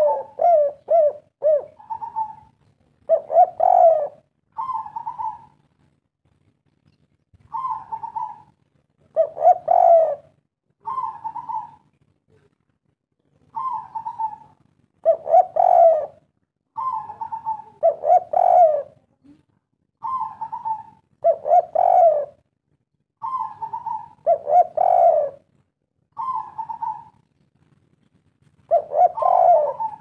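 Spotted dove cooing its three-note 'kuk 3' phrase over and over: a short higher coo, a louder, lower rolling coo, then another short higher coo. Each phrase is followed by a pause of a second or two, with a quicker run of notes near the start.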